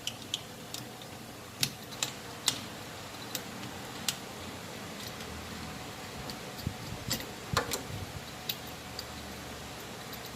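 Irregular light clicks and taps as the refrigerator compressor's start relay and overload protector are worked loose and pulled off the compressor terminals by hand, with a faint steady hum under them.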